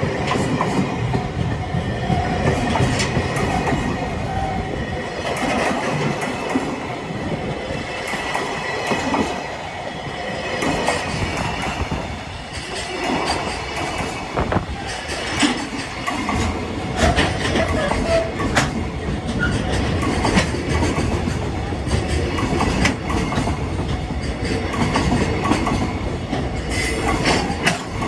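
Freight train hauled by a JR Freight EF210 electric locomotive passing over a level crossing at close range: a continuous rumble of freight wagons, with repeated clicks of the wheels over the rail joints.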